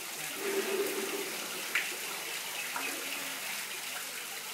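Water splashing steadily from an artificial waterfall into a koi pond, with one brief knock a little under two seconds in.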